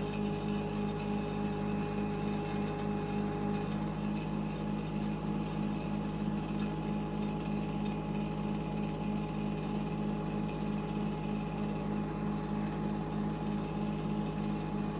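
Shanding 1-ton mini excavator's small water-cooled diesel engine running steadily, with an even pulse of about three to four beats a second and a steady whine over it. One of the whine tones drops out about four seconds in.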